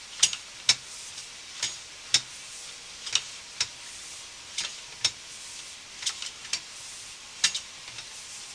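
Sewer inspection camera's push cable being fed further down the line, clicking sharply and irregularly about once or twice a second over a steady hiss of water running in the pipe.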